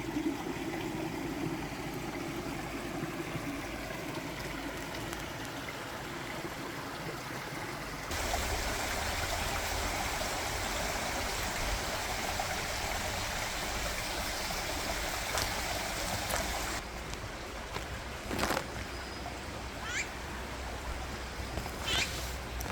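Steady rush of flowing stream water, its sound changing abruptly twice. Near the end a few short bird calls, one a quick rising whistle.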